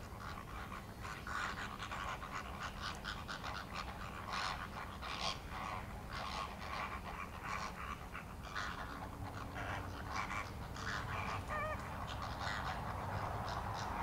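A flock of waterbirds calling over one another in a dense run of short, rapid calls, with a brief wavering call near the end.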